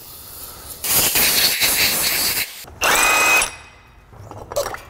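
Aerosol cleaner sprayed in a long hiss lasting about a second and a half. Then a cordless power tool spins up briefly with a whine that rises and holds for about half a second.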